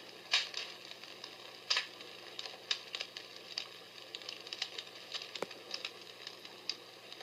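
Comfort Smart Fire Crackler, a palm-sized battery-operated sound machine, playing its crackling-fireplace sound on the low setting through its small front speaker: irregular sharp pops and crackles over a faint steady hiss.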